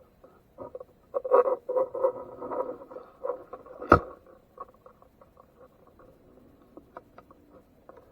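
Small clicks, taps and scratchy crackling from hands working a soldering job at a bench, busiest from about one to three seconds in, with one sharp knock just before four seconds in.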